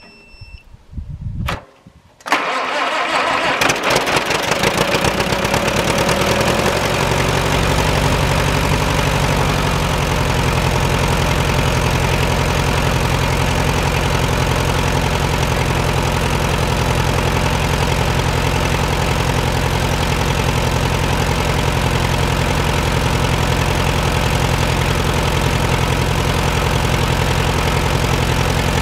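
Case VAC tractor's four-cylinder gasoline engine cranking briefly, then catching about two seconds in. It runs loud and a little uneven for a few seconds, then settles into a steady idle with a regular pulse. This is its first start after sitting unused for years.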